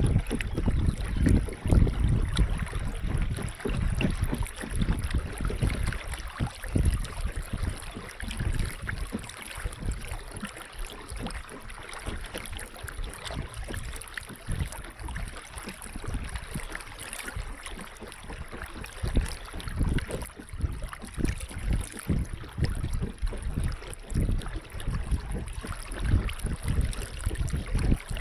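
River water lapping and splashing against the side of a moving wooden boat, with wind buffeting the microphone; louder for the first several seconds, quieter in the middle, and picking up again later.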